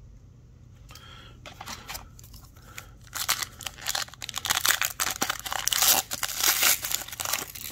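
Foil wrapper of an Upper Deck hockey card pack being torn open and crumpled by hand. A few faint crinkles come first, then dense, loud crackling tearing from about three seconds in until just before the end.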